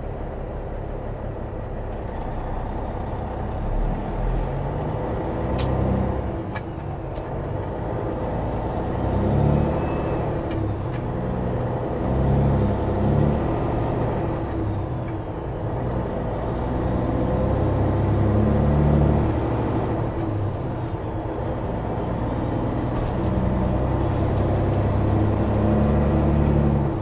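CAT C15 diesel in a 2006 Peterbilt 379, heard from the cab, pulling a fully loaded 140,000 lb truck up through the low gears of its non-synchro transmission. The engine pulls hard, eases off at each shift and then pulls again, several times over. A few sharp clicks come about six seconds in.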